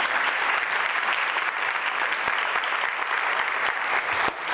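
Audience applauding, a dense steady wash of clapping.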